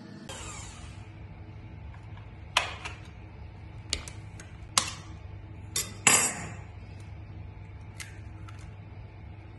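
A wire whisk knocking and clinking against the side of a mixing bowl while stirring thick cream-cheese batter: about five sharp knocks, the loudest ringing briefly about six seconds in, then a couple of faint clicks. A low steady hum runs underneath.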